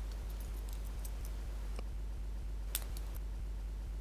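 Faint small metallic clicks and ticks from a stainless-steel padlock and its key being handled, with one sharper click about two-thirds of the way through, over a steady low electrical hum.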